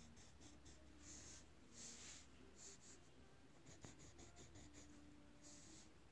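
Faint pencil strokes scratching on paper, coming in short irregular strokes, with a run of quick little ticks about two-thirds of the way in.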